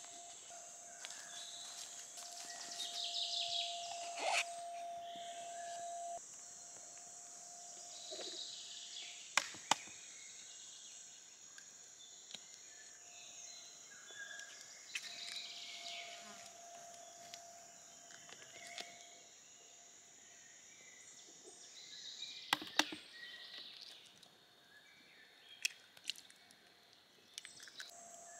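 Woodland ambience: birds chirping now and then over a steady high-pitched hiss, with several sharp clicks and knocks along the way, two pairs of them close together about ten and twenty-three seconds in.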